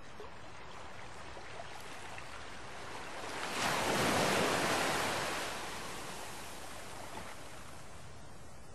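Outdoor harbour ambience: a steady rush of wind and water that swells into a louder rushing sound for about two seconds in the middle, then settles back.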